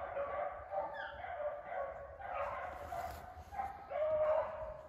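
A pack of rabbit-hunting hounds baying on a rabbit's trail, several dogs giving voice over one another without a break, with one longer drawn-out bay about four seconds in.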